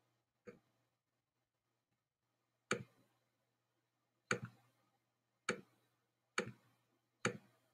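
A computer mouse clicking six times, single sharp clicks spaced roughly a second apart, with a faint low hum between.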